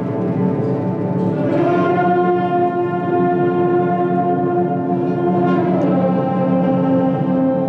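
Concert band playing slow, sustained chords, led by brass. The sound grows fuller and brighter about a second and a half in, and the chord shifts lower near the end.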